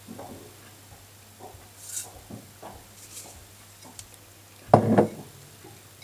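Faint kitchen handling sounds at a saucepan: scattered soft knocks, clinks and rustles of a spoon and ingredient containers, with one louder knock about five seconds in, over a faint steady low hum.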